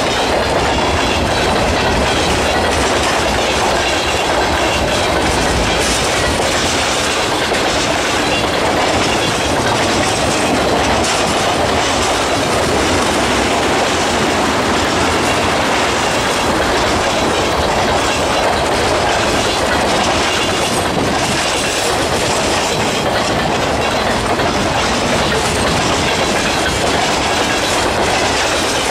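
Freight train's tank cars, hoppers and boxcars rolling past at speed. Steel wheels clatter over the rail joints in a steady, loud rush.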